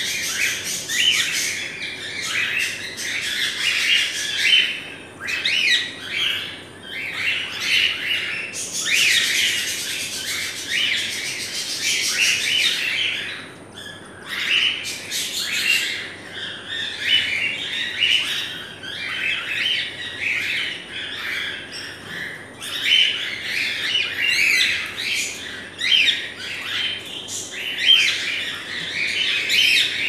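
A flock of caged cockatiels chirping and calling over one another without a break, with a louder stretch of harsher calls about nine seconds in that lasts a few seconds.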